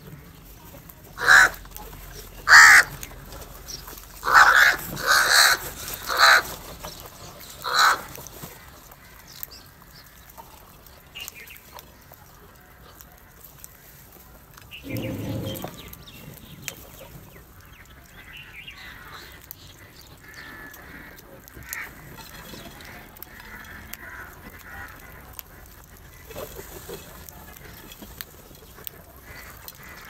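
House crows cawing: about seven loud, harsh caws in the first eight seconds, then only softer, scattered calls.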